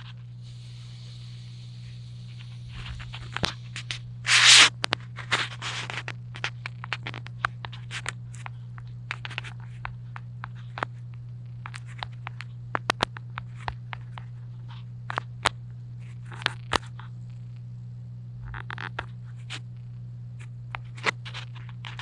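Irregular sharp clicks and a few short scraping rustles over a steady low hum, picked up by a cellphone microphone left recording; the recorder takes the clicks for directed-energy-weapon hits on his head. The loudest scrape comes about four and a half seconds in.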